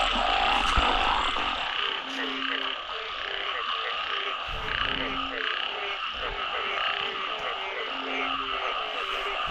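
A chorus of frogs calling in a flooded field after heavy rain, a breeding chorus: quick short croaks several a second, a lower drawn-out croak every two to three seconds, and a steady din of higher-pitched calls behind them.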